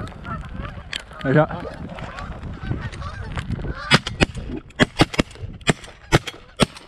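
A flock of geese honking overhead, then from about four seconds in a rapid volley of shotgun blasts, about seven shots in under three seconds, as hunters fire on the passing flock.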